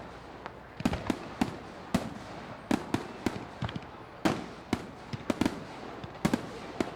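Fireworks bursting overhead: sharp bangs at an irregular pace of about two a second, each followed by a short rumbling tail.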